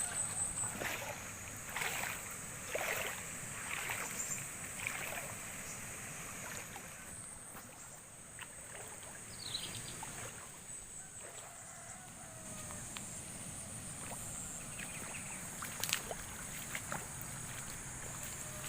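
Water from a dam overflowing after heavy rain, flowing steadily, with irregular splashes over the first few seconds.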